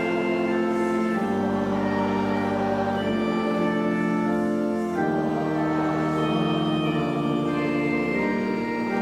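Organ playing slow, sustained chords that change every couple of seconds.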